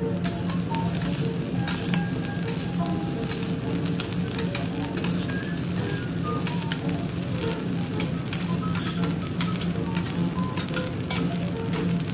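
Egg fried rice sizzling on a steel teppanyaki griddle while two metal spatulas scrape under it and turn it. The spatula edges click against the griddle plate many times.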